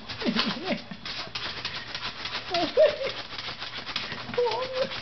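Shih Tzu puppy's claws scratching rapidly on a wooden desktop, a fast rasping of many strokes a second. A few short vocal sounds rise over it near the start, in the middle and near the end.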